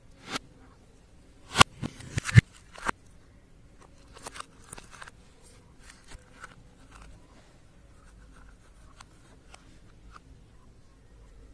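Slime being pressed and worked by hand, giving a cluster of sharp clicks and pops between about one and a half and three seconds in, then softer crackling and scattered faint clicks.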